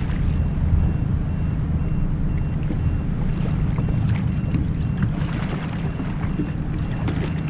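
Sea-Doo Fish Pro personal watercraft's engine running steadily while under way, a low hum with water and wind rush over it.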